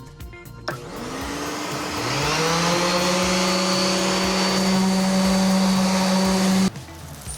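Electric power sander switched on, its motor spinning up with a rising whine and then running at a steady high speed on fiberglass; the sound cuts off suddenly near the end.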